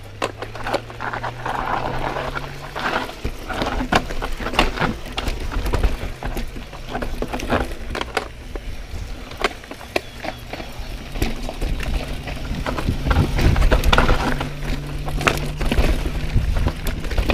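Pivot Firebird mountain bike descending a rough downhill trail, its frame and chain rattling and knocking over rocks and roots. A low steady buzz comes and goes, and wind rush builds near the end.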